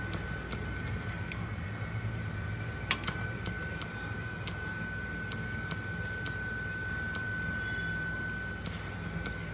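Welding equipment running: a steady high whine and a low hum, with irregular sharp ticks about once or twice a second. The whine stops near the end.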